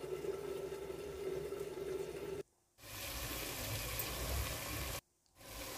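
Mutton simmering in its own released water in a clay pot, a steady watery hiss. It cuts off abruptly to silence twice.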